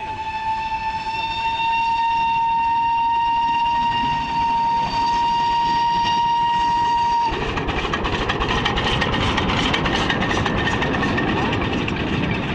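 Toy train's horn sounding one long, steady, slightly rising tone for about seven seconds. It cuts off suddenly as the train runs close past, its wheels clattering on the rails.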